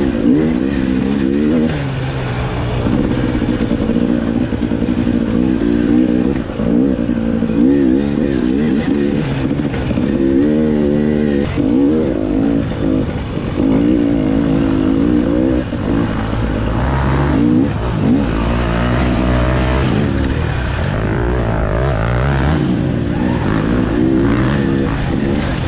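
Off-road dirt bike engine revving hard, its pitch rising and falling over and over as the rider accelerates, shifts and backs off over the bumps.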